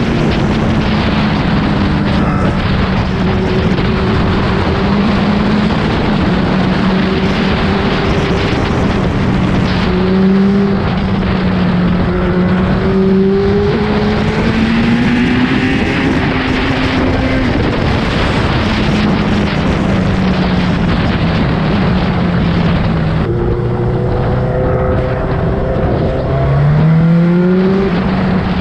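Suzuki GSX-R1000 sportbike's inline-four engine running hard under heavy wind rush, its pitch rising and falling with throttle and gear changes. Late on the wind drops and the engine note falls low, then climbs sharply as it revs back up.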